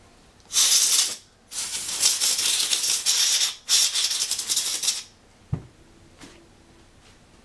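Three bursts of air blown through the compensator, a dense hiss with a ragged flutter; the middle burst is the longest. A short knock follows about five and a half seconds in.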